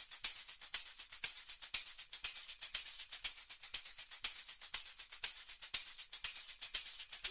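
Background music made only of high, bright percussion ticking in a quick, steady rhythm, with no bass or melody.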